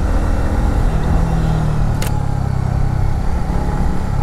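Motorcycle engine running at a steady, even pitch while the bike rides along, with wind and road noise over it. A single sharp click about two seconds in.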